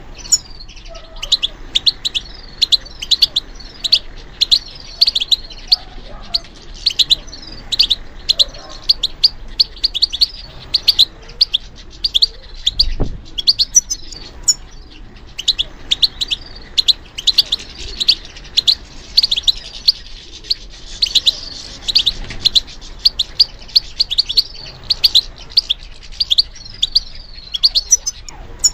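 European goldfinch singing continuously: rapid runs of high, twittering chirps and trills. A single faint low thump about halfway through.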